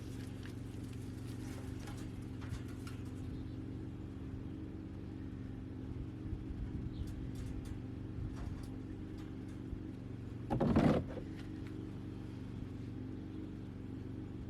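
A motor running steadily at a constant pitch, with light scattered clicks and rustles and one short louder noise about ten and a half seconds in.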